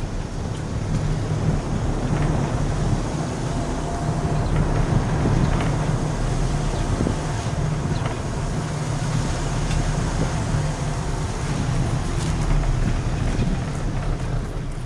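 Wind rumbling on the microphone: a steady low rumble with a few faint clicks.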